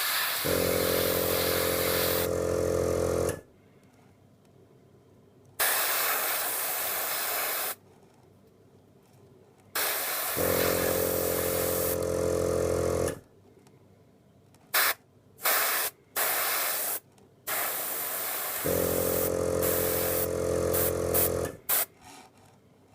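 Iwata Neo airbrush hissing in bursts of two to four seconds as the trigger is worked, with several quick short spurts in the second half. During three of the longer bursts the Aeolian Pixie mini compressor's motor hums along with it, starting just after the hiss and stopping with it.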